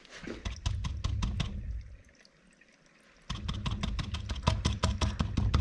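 Battery acid draining from a sealed electrolyte container into a new battery's cells, with a run of irregular clicks and knocks. It pauses for about a second in the middle, then starts again.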